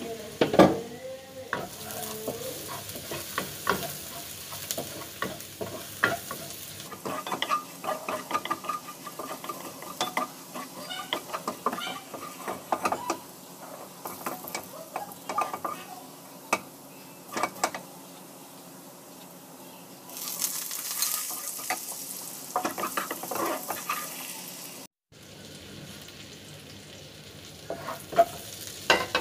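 Minced garlic frying and sizzling in a stainless-steel honeycomb wok, stirred with a wooden spatula that scrapes and knocks against the pan at irregular moments.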